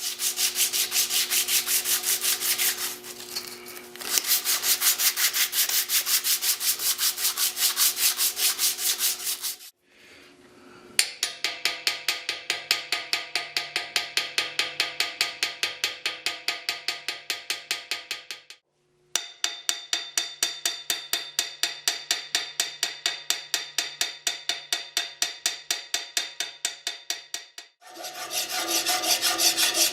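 Rapid back-and-forth abrasive strokes, about four a second, as a full-tang knife handle is shaped by hand to a rounded contour, with a faint ringing under the strokes. The stroking stops briefly three times, near 10, 19 and 28 seconds in.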